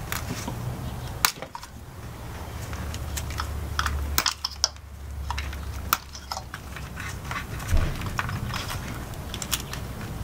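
Plastic electrical connectors on the ignition coils being squeezed and pulled off by gloved hands: an irregular run of small sharp plastic clicks and rattles.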